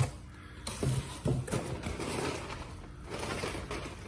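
Packing material being handled inside a cardboard shipping box: a sharp knock at the start, a few bumps about a second in, then rustling and scraping that gets louder near the end.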